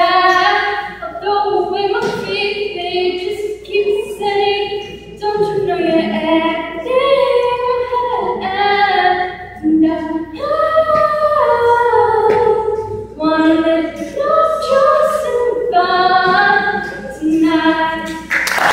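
A young girl's solo singing voice, a seventh-grader, carrying the song's closing lines with held notes that rise and fall in pitch.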